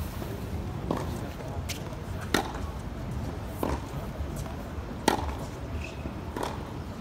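Tennis ball hit back and forth by rackets in a practice rally on a hard court, a sharp knock every second or so, some louder than others.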